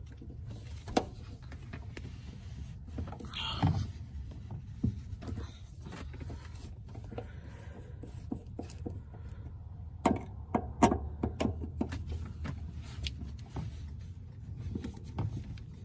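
Phillips screwdriver working the small screws on a car's fuel pump cover, loosening them: scattered light clicks and scrapes, a cluster of them about ten seconds in, over a steady low hum.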